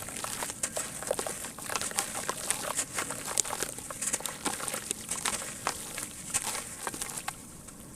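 Sand-cement crumbling in water: dense, irregular crackles and clicks over a fizzing hiss, thinning out near the end.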